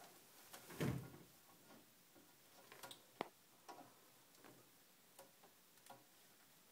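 Faint handling clicks of a hand screwing a pipe fitting onto a toilet's water-supply valve: a soft knock about a second in, a sharp click about three seconds in, then a few lighter ticks.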